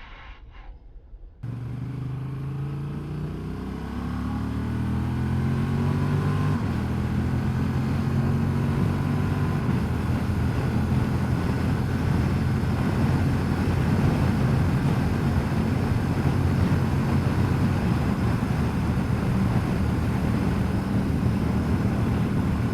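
Honda Transalp XL750's parallel-twin engine pulling hard, its note rising through a gear, then holding steady at speed under heavy wind noise, heard from the rider's helmet.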